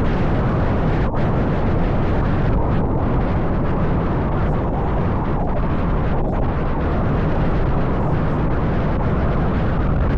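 Wind buffeting the microphone of a handlebar-mounted action camera on a moving bicycle: a loud, steady rumble.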